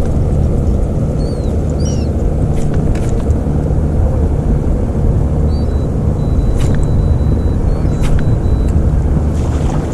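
Boat motor running with a steady low hum, with a few faint clicks over it.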